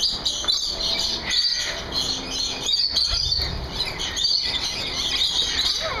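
A small flock of rainbow lorikeets chattering, a dense, continuous stream of short, high chirps and squeals.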